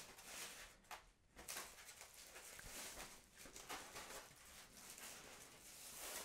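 Faint handling noise of an unboxing: soft rustling of packaging and the tablet being picked up, with a few light clicks.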